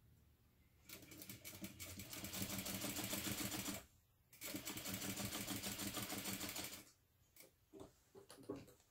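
Sewing machine stitching a top-stitch line along a fabric card slot at a long stitch length, in two runs of about three and two and a half seconds with a brief stop between. A few soft clicks follow near the end.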